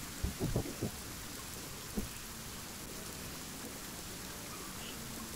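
Steady rain falling on water and surfaces, with a few dull low thumps about half a second in and one more about two seconds in.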